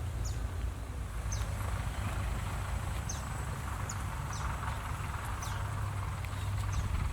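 Outdoor ambience: a steady low rumble with a small bird giving short, high, falling chirps, about seven of them at irregular intervals.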